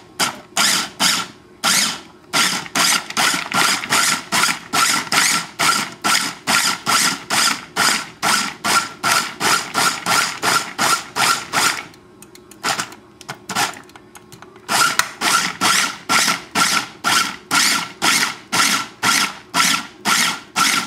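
Small food processor pulsed in quick short bursts, about two a second, its blade chopping raw peeled potato and red onion. The pulsing stops for about three seconds just past the middle, then starts again at the same pace.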